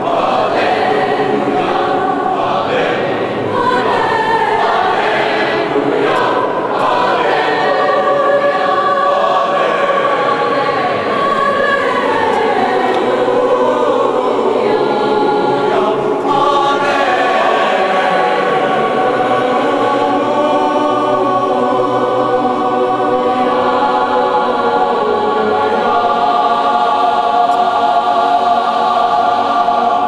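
Mixed choir of girls' and boys' voices singing a sustained piece in parts in a stone cathedral, ending on a long held chord near the end.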